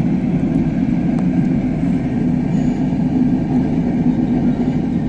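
A steady low rumbling noise, constant in level throughout.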